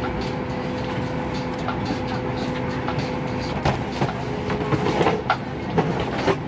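Steady running noise of a moving road vehicle heard from inside, with an even engine hum. Several sharp knocks and rattles come in the second half.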